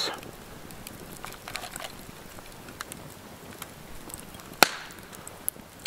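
Faint crackling of a wood campfire: scattered small pops, with one sharper click about four and a half seconds in.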